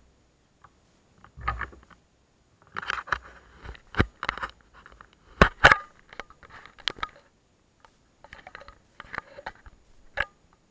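Close handling noise of a small action camera being gripped and moved: irregular knocks, clicks and rustling scrapes, with the sharpest knocks about four, five and a half and seven seconds in.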